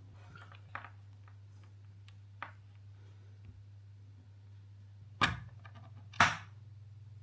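Steady low hum of a running metal lathe, broken by a few sharp knocks. Two faint knocks come in the first half, and two much louder ones about five and six seconds in.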